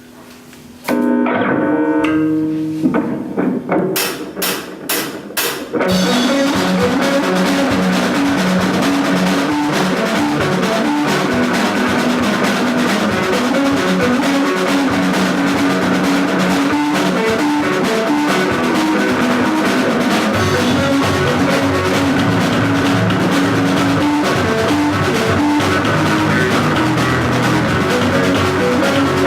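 A rock band starts a song live. A few guitar notes come first, then four sharp evenly spaced clicks, and about six seconds in the full band comes in with drum kit and guitar and plays on steadily.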